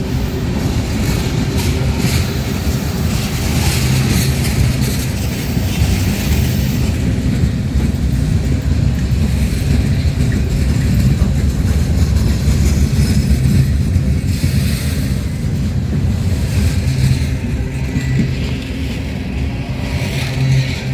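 Freight train rolling past: a steady low rumble of the cars and wheels on the rails.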